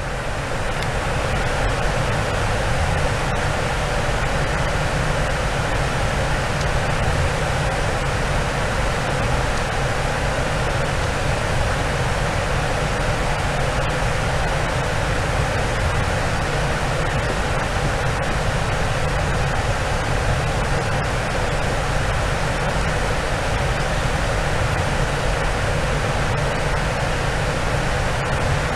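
Boeing 747-400 cabin noise in cruise: a steady, unbroken rush of airflow and engine noise with a low rumble underneath.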